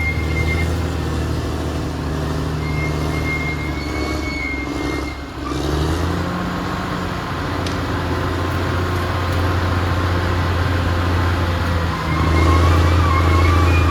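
Caterpillar D6R XL bulldozer's diesel engine running steadily, with a thin high squeal coming and going. The engine dips briefly about five seconds in and grows louder about twelve seconds in.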